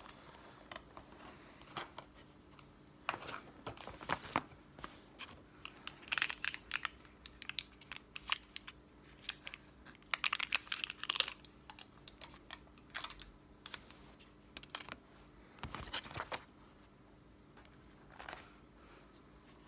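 Paperboard sandwich boxes and paper food packaging being handled and torn open: irregular crinkling, tearing and small clicks in short bursts.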